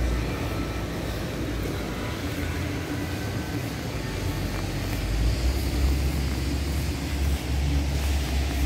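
Outdoor city street ambience: a steady low rumble of traffic that swells from about five seconds in.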